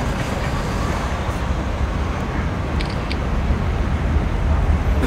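Steady low outdoor rumble of urban background noise, like distant road traffic, growing slightly louder, with two faint ticks about three seconds in.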